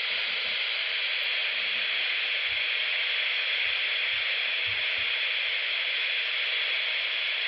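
Steady static hiss from a weather radio receiver: the NOAA Weather Radio station's broadcast has dropped off the air, leaving only open-channel noise.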